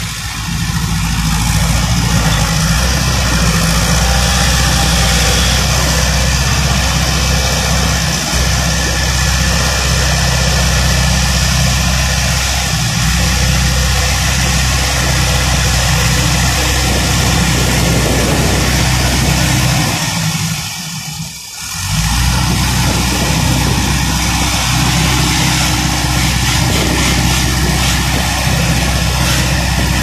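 Farm tractor's diesel engine running steadily under load, close by, as its front loader scoops and lifts silage into a feed mixer wagon. The sound drops away briefly about two-thirds of the way through, then returns.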